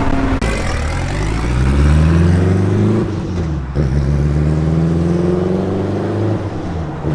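Car engine accelerating hard, its pitch climbing. The pitch drops at a gear change a little past halfway, climbs again, and eases off near the end.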